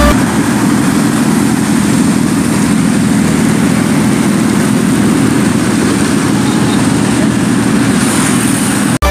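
Superbike engine running loud and steady, with no rise or fall in pitch; it cuts off abruptly near the end.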